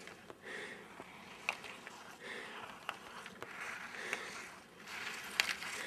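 Ski edges scraping across hard-packed snow as a racer carves giant slalom turns, the scraping swelling and fading with each turn, with a few sharp clicks.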